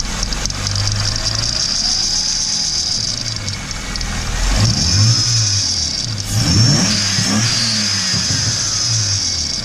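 BMW M52B28 straight-six running and revved a few times, with a steady high-pitched whistle from the belt tensioner on top of the engine sound. Described as a nasty sound, it is taken for a failing tensioner roller or its bearing.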